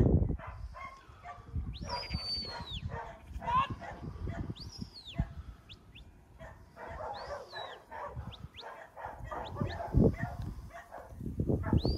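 Shepherd's whistle commands to a working sheepdog: several long whistles that rise sharply, hold high and fall away, about every two to three seconds, with a few short rising chirps near the end, over sheep bleating in the flock.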